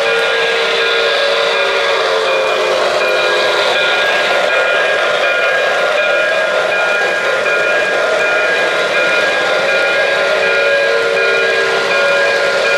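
Steam railroad sound: a steam locomotive whistle blowing a held chord during the first few seconds and again near the end, over steady hiss and the running noise of passing train cars.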